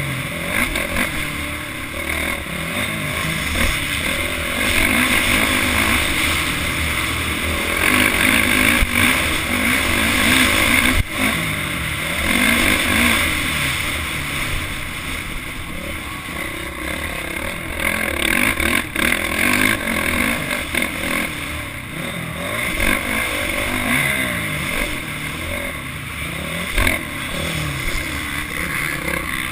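Motocross dirt bike engine revving up and down as it is ridden hard around the track, heard from a camera mounted on the bike or rider.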